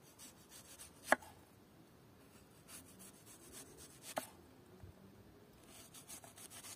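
Knife slicing an onion into rings on a wooden cutting board: faint crisp cuts and scrapes, with two sharp clicks of the blade on the board, about a second in and about four seconds in.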